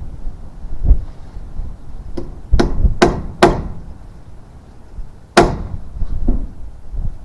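Irregular hammer blows on wood, with a quick run of three hard strikes a little past halfway in and one more loud strike later: nails being driven through a wooden rafter into a truss.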